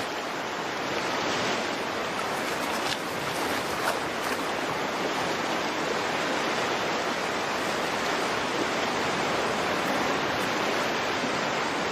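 Rushing stream water, a steady even rush with no pauses.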